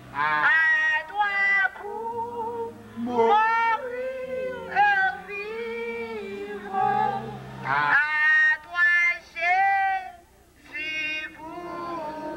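A woman sings a French hymn through a handheld megaphone, in phrases with short breaths between them and a brief pause about ten seconds in.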